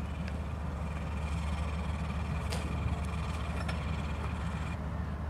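Diesel engines of a passing ship droning across the water: a steady low hum.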